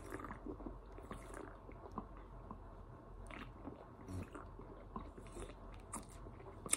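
Faint close-up mouth sounds of someone drinking soda from a can: soft gulps, swallows and small wet clicks. A louder breathy sound comes right at the end.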